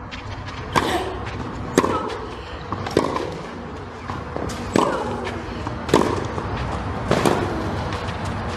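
Tennis rally on a clay court: rackets striking the ball back and forth, six sharp hits about a second apart.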